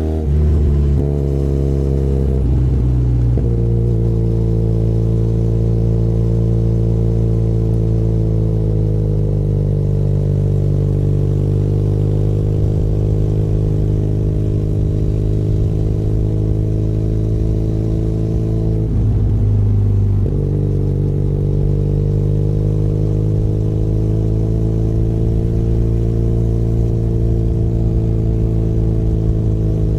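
Benelli Leoncino 500 Trail's parallel-twin engine running under way at a fairly steady pitch. The engine note shifts in the first few seconds and breaks briefly about two-thirds through, as with throttle or gear changes.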